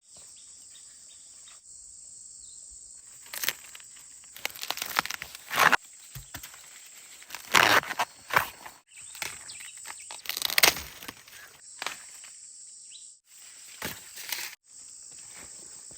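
Insects shrilling steadily at a high pitch, the drone cutting off and resuming abruptly several times, broken by five loud bouts of rustling and tearing, like plants being handled.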